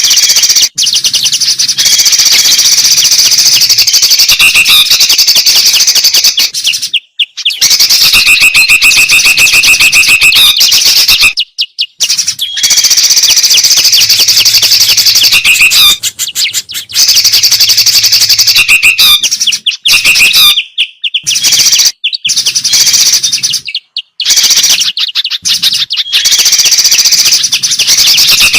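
A loud, dense mix of songbird chatter: rapid high chirps, trills and whistles from several birds calling at once, repeated in stretches with brief gaps. It is a bird-lure recording of bulbul and spiderhunter calls.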